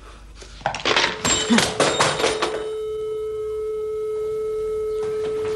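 A single steady synthesizer note, pure and organ-like, from the film's score. It comes in about a second in and holds without change, over a brief flurry of noisy knocks and rustling in the first couple of seconds.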